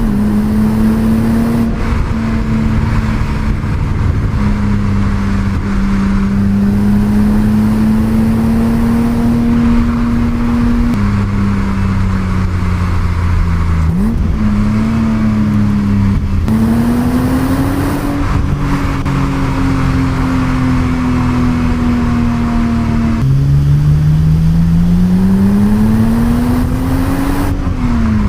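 Stock BMW E30 325i's 2.5-litre straight-six engine driving under steady load. Its pitch climbs slowly and drops at several gear changes, with one quick blip of revs.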